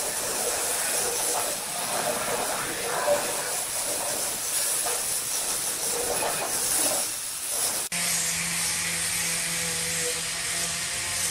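Stone edge-grinding machine running along a granite countertop strip: a loud hissing grind that swells and fades as the head works the edge. About eight seconds in it cuts off abruptly to a steadier machine hum.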